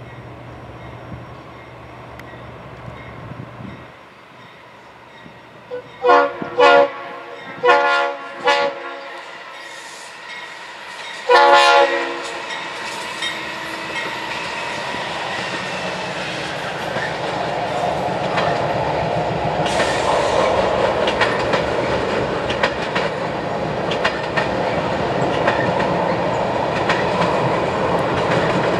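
A locomotive's multi-chime air horn sounds several short blasts and then a longer one. The train then approaches, and the rumble and clickety-clack of its wheels grow steadily louder.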